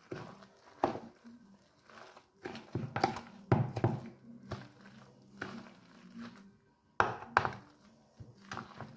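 A metal fork stirring grated potato batter in a bowl, with irregular clacks of the fork against the bowl and soft wet mixing noise between them. The knocks come loosely spaced, in a cluster of several a few seconds in and two more near the end.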